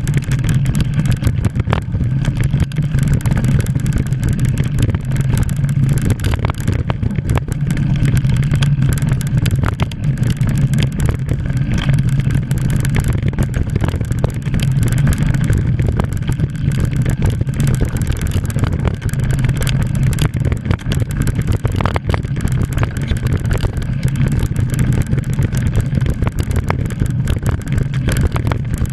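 Mountain bike ridden fast downhill on a dirt trail, heard through an action camera worn by the rider: a steady wind rumble on the microphone over tyre noise on dirt, with frequent clicks and rattles as the bike goes over bumps.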